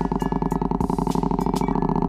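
Parallel-twin motorcycle engine idling, a steady rapid run of firing pulses.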